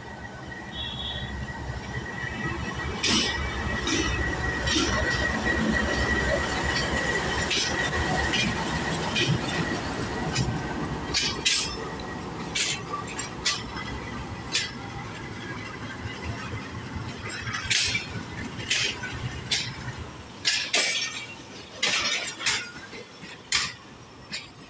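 Diesel-hauled passenger train rolling in with a steady low rumble and a thin squeal over the first several seconds, with many sharp metallic clanks and clinks throughout. The rumble dies away about 20 seconds in while the clinks carry on.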